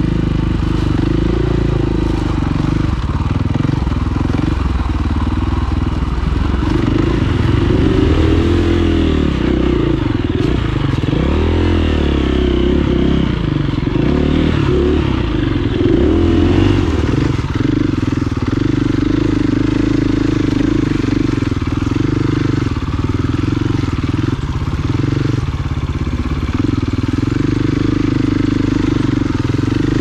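Dirt bike engine running under load on a rough trail, the revs rising and falling repeatedly with the throttle.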